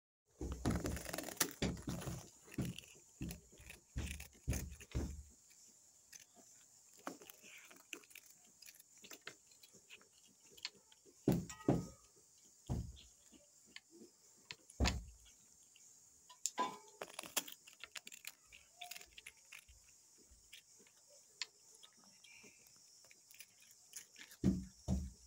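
A tabby kitten crunching a crisp biscuit: many quick, sharp crackles and clicks, with clusters of low thumps, loudest in the first five seconds and again around eleven to fifteen seconds in.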